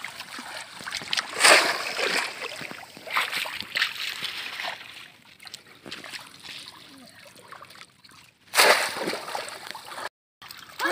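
Shallow water splashing and sloshing as boys wade and push a bamboo polo fish trap down into it, in several separate splashes with quieter water noise between.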